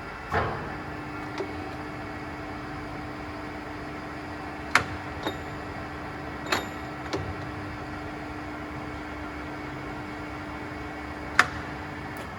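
SanShing SK 2260 centre lathe running with a steady hum and one even tone, which start just under a second in after a sharp click. Several more sharp clicks and knocks come through it, the loudest near the end.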